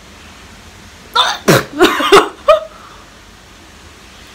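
A woman's loud vocal outburst, not words: about five quick, short bursts of voice packed into a second and a half, one falling in pitch.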